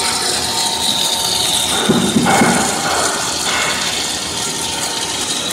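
Twin-screw snack food extruder running: a steady mechanical whir and hiss with a faint high whine, swelling briefly about two seconds in.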